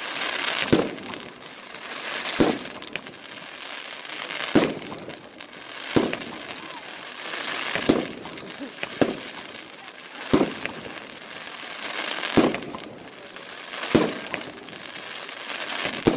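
Consumer firework battery (cake) firing shot after shot, about one every one and a half to two seconds. Each shot is a sharp bang trailed by a short hissing crackle from the bursting stars.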